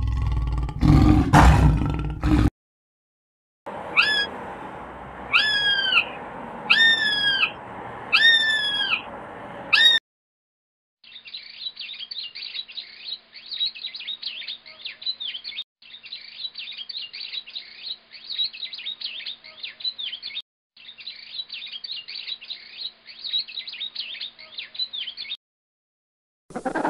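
A run of separate animal sound clips: an animal's roar that ends about two seconds in, then after a pause five high, hooked calls about a second and a half apart, then dense bird chirping and twittering in three stretches broken by brief gaps.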